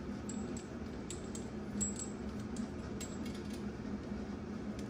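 Scattered light metallic clicks and clinks of a bidet seat's water splitter being threaded by hand onto the toilet tank's water-supply fitting, over a steady low hum.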